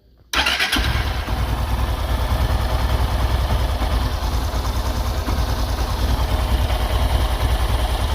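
A 160 motorcycle's single-cylinder engine starts about a third of a second in and settles into a steady idle. It runs quietly, with no tapping, its valve clearances freshly set and a loose bolt replaced.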